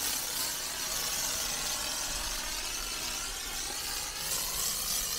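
Pressure washer spray hissing steadily as the jet plays over a foam-covered car.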